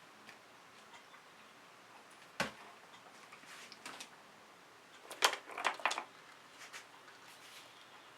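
Small clicks and knocks of paint containers and tools being handled: one sharp knock about two and a half seconds in, then a quick cluster of clicks around five to six seconds in.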